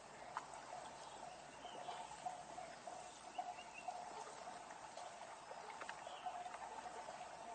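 Faint outdoor ambience by a buffalo wallow: a steady drone, with scattered small clicks and a few short high chirps.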